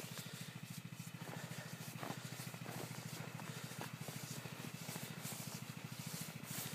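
A snowmobile engine running: a faint, steady low hum with a fast, even pulse. A few faint crunches of footsteps in snow sound over it.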